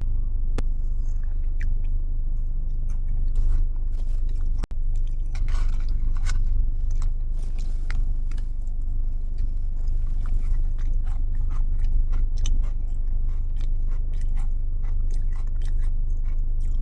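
Close-up chewing and crunching of crunchy Biscoff biscuit pieces in a caramel ice-cream dessert, with many small irregular clicks and crunches. The sound breaks off briefly about four and a half seconds in.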